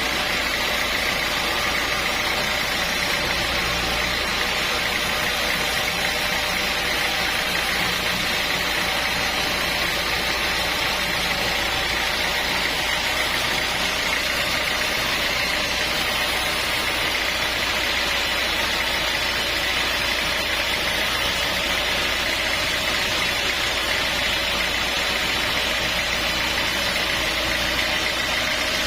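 Sawmill machinery running steadily: a constant mechanical drone with a steady high whine over it, unchanging in level throughout.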